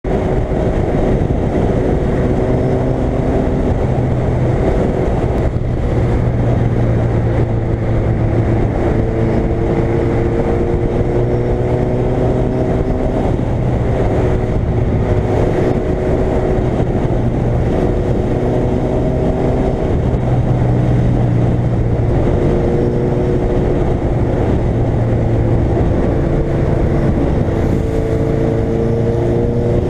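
Suzuki Hayabusa's inline-four engine running at highway speed, its pitch climbing slowly several times as the bike gathers speed, over a steady rush of wind noise.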